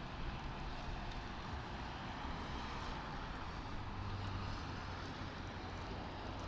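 Faint, steady traffic and engine noise picked up by a dashcam inside a car. A low engine hum grows stronger about four seconds in as a truck crosses close in front.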